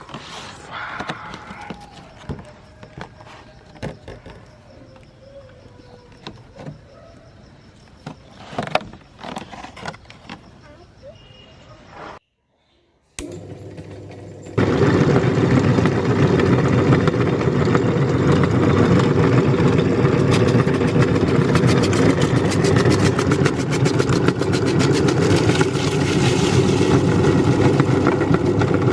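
Electric meat grinder switching on about halfway through and running loud and steady. Before it, scattered clicks and knocks of handling.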